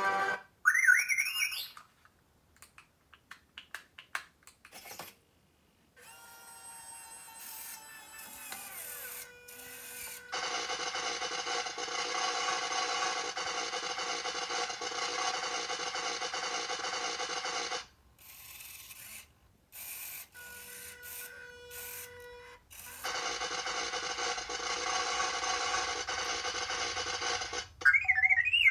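Life-size R2-D2 replica droid playing its electronic droid sounds: a warbling rising whistle at the start, then scattered clicks and short chirps, two long buzzing, rasping stretches lasting several seconds each, and warbling whistles again near the end.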